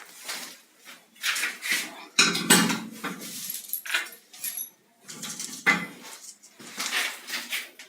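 Irregular clatter and scraping of hard objects being handled, with separate knocks and scrapes coming every second or so.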